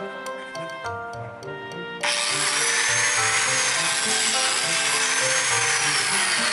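Background music with steady notes, then about two seconds in a biscuit joiner starts up suddenly and runs steadily, cutting a slot for a #20 biscuit into a cedar slab, with a faint whine that drifts up and down.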